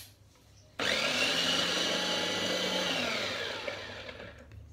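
Mitochiba CH200 electric food chopper's motor switched on by pressing down the top cap: it spins up quickly with a whine and runs steadily for about two seconds. It is then released and winds down with falling pitch.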